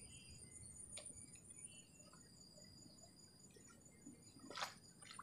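Near silence with faint insects trilling steadily in several high, even tones. There is a small click about a second in and a short scratchy rustle near the end.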